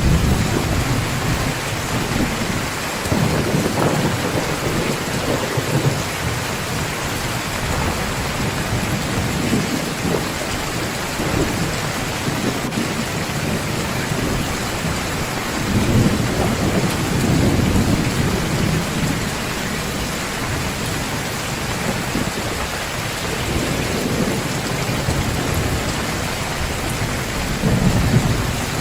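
Heavy, steady rain in a thunderstorm, with low rolling rumbles of thunder swelling up several times: near the start, a few seconds in, about halfway through and near the end.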